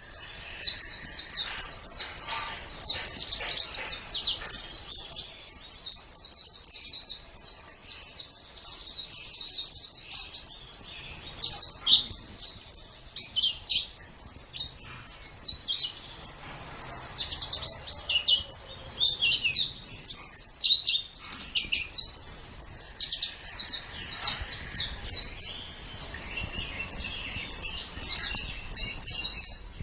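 White-eye (pleci) singing a fast, continuous chattering song of high, rapid chirps and trills, with only brief pauses.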